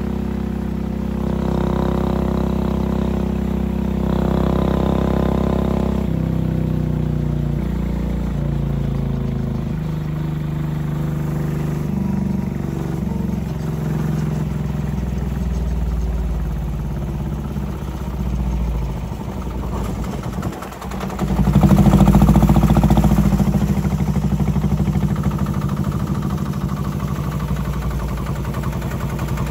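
A single-cylinder air-cooled diesel engine, taken off a generator, running as the mini Peterbilt truck it powers drives along. Its pitch shifts in steps; about two-thirds of the way through it dips briefly, then speeds up and runs loudest before settling again.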